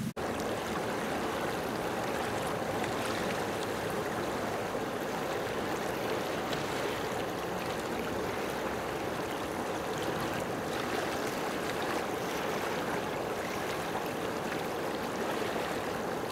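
Steady rushing of open water, like small waves washing on a rocky shore, with no pitch or rhythm to it.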